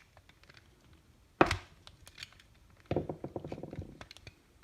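Plastic trim tool prying at the push-fit top cover of a BMW iDrive touch controller: one sharp plastic knock about a second and a half in, then a quick rattle of small clicks for about a second as the cover is worked loose.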